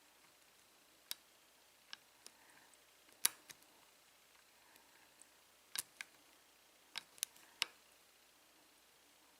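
A lock pick and tension wrench clicking against the pin stack of an American Lock 5200-series padlock during single-pin picking: about a dozen faint, irregular clicks, the sharpest about three seconds in and near the end.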